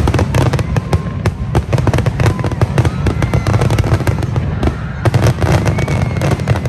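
Aerial fireworks display: many shells bursting in rapid, overlapping succession, with dense crackling over a constant low rumble.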